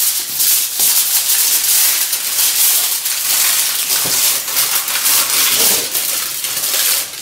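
Aluminium kitchen foil crinkling and crackling steadily as it is scrunched by hand and squeezed into a hook shape.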